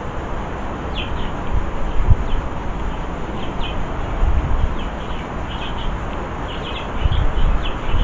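Small garden birds giving short, scattered chirps, several a second at times, over an irregular low rumble that swells about two seconds in and again near the end.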